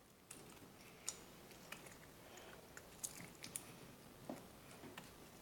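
Faint scattered clicks and soft crackles as a foam squishy toy is cut open and handled.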